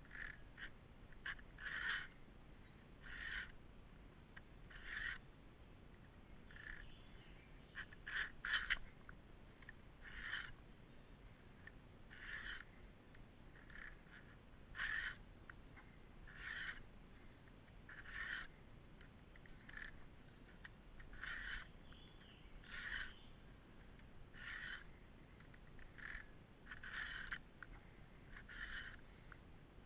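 Chainsaw chain being hand-sharpened with a PFERD CS-X filing guide: its round and flat files rasp across a cutter and its depth gauge together in regular strokes, about one every second and a half.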